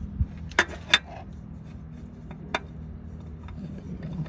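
Handling noise: a dull thump, then three sharp clicks, two close together under a second in and one more about two and a half seconds in, with light rubbing over a steady low hum.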